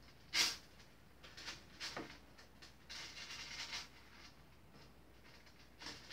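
Metal chainmail rings clinking and pliers clicking as a join in the mail is closed by hand: one sharp chink about half a second in, a few lighter clinks around two seconds, then a faint rustle of the mail.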